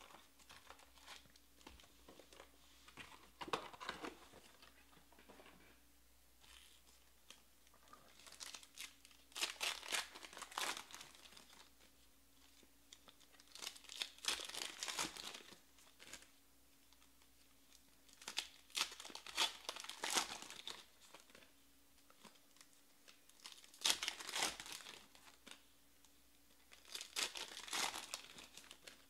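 Trading card pack wrappers being torn open and crinkled by hand, in separate bursts every few seconds, with quieter card handling between.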